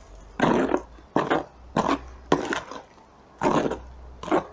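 Spoon stirring and pressing a wet mass of finely grated potato and onion in a bowl, in about six short squelching strokes, working the excess liquid out through a colander.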